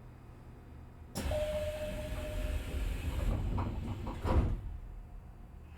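A Nishitetsu 3000-series train's sliding passenger doors closing. About a second in comes a sudden rush of noise and a steady tone lasting about a second and a half. A single sharp thump as the doors shut is the loudest sound, near the end.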